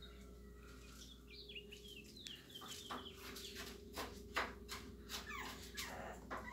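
A small puppy whining in high, thin, falling cries, then giving a string of short yelps through the second half.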